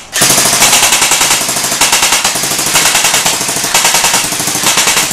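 Airsoft electric rifle (AEG) firing on full auto: a long, continuous burst of rapid, evenly spaced shots from the motor-driven gearbox.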